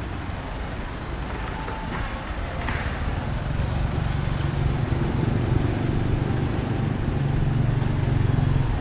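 A motor vehicle's engine running close by, a low rumble that grows louder from about halfway through.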